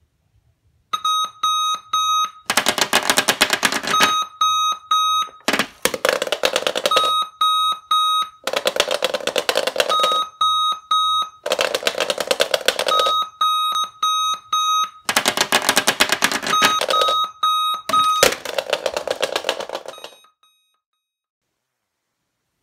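Sonic Alert "The Skull" alarm clock going off: groups of three short high beeps alternating with a louder, fast-pulsing buzz, the cycle repeating about every three seconds, until it is switched off near the end.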